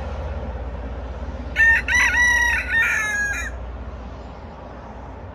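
A rooster crowing once, a cock-a-doodle-doo of about two seconds starting about a second and a half in. A steady low rumble runs underneath.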